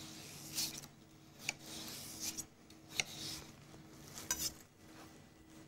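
A sharp kitchen knife slicing raw asparagus into thin strips. The cuts come as a handful of short, crisp knife strokes spaced unevenly about a second apart, with soft scraping between them.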